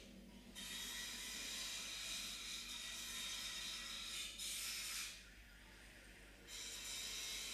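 Steady high-pitched hiss with no speech. It cuts out for a moment at the start and again for over a second about five seconds in.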